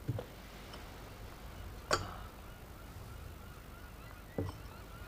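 Three sharp clinks of a spoon and glassware at a dining table, roughly two seconds apart, the middle one the loudest, over a low steady outdoor hum. Faint chirping runs through the second half.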